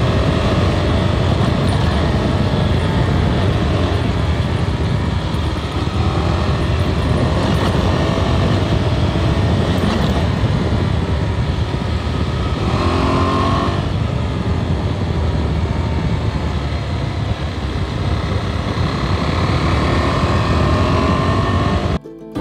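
Motorcycle engine running under way with heavy wind rush, its pitch rising as it accelerates about halfway through and again near the end; it cuts off abruptly just before the end.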